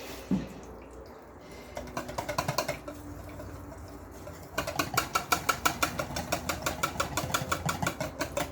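A metal utensil stirring and scraping in a pot of mashed turnip, mixing in the pepper. A short patter of clicks comes about two seconds in; from about halfway the strokes turn fast and even, about five a second.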